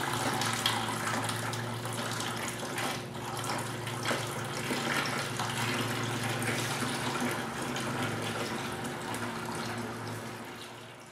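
Siphoned water pouring steadily from a clear plastic tube into a plastic bucket; it fades out near the end.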